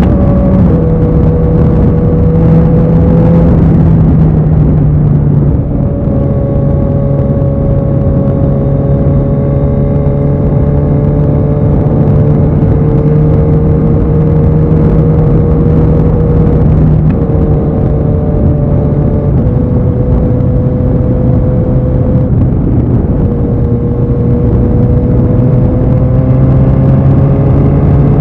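Kawasaki Z900's inline-four engine through an IXIL aftermarket exhaust, running at a fairly steady engine speed. Its pitch shifts in small steps every few seconds, over a heavy low rumble.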